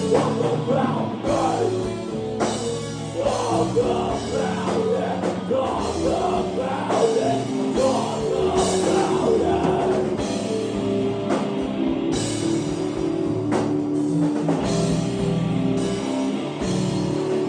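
Live rock band playing at an open jam: drum kit and amplified instruments, with some singing.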